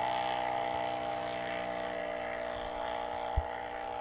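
Off-road rally 4x4's engine running at a steady, held note, slowly fading, with a single dull thump about three and a half seconds in.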